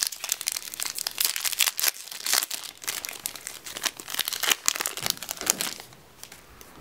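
Foil wrapper of a Yu-Gi-Oh! booster pack being torn open by hand, crinkling and crackling, dying down about six seconds in as the cards come out.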